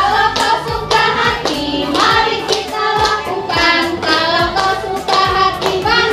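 Upbeat song with singing over a steady beat of about two strokes a second, with hands clapping along.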